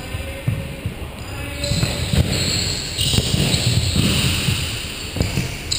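Futsal ball thudding off feet and the wooden court, with players' footsteps on the floor, ringing in a large sports hall.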